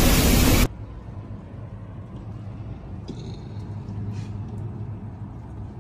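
Heavy rain hissing in a downpour, cut off abruptly less than a second in. After that only a quiet low steady hum remains, with a couple of faint, brief high sounds.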